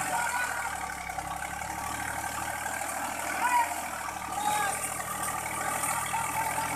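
Farm tractor's diesel engine running steadily under load as the tractor struggles in deep mud, its log-wrapped rear wheels churning. Voices shout now and then over the engine.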